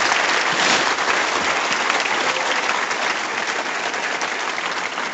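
Audience applauding, a dense clatter of many hands clapping that slowly thins toward the end.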